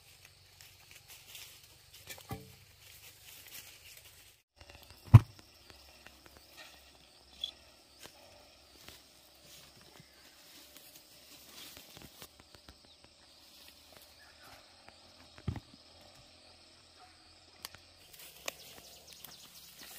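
A hoe chopping into soil, then scattered dull thumps, the loudest about five seconds in. Under them runs a steady, high, evenly pulsing insect chorus.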